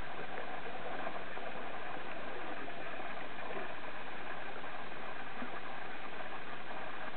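Underwater ambient noise heard through a waterproof camera housing: a steady, even hiss with no distinct events.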